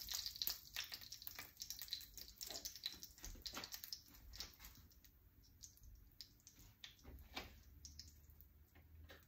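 Faint, irregular clicks and taps of a kitchen utensil on a plate and countertop while butter is put on a cooked steak. A pan sizzle dies away over the first few seconds.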